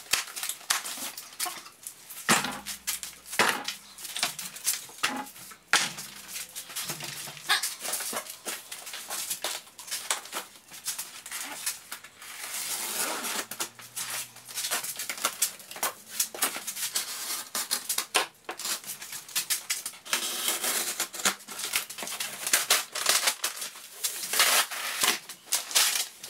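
Large cardboard shipping carton being opened and handled by hand: cardboard flaps and lid scraping and rustling, with plastic strapping and foam packing moved about, in a steady run of short knocks, crackles and rustles.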